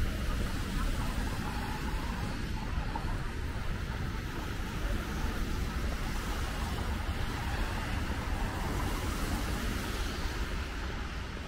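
Steady city street traffic noise: the hum of passing cars with a low rumble.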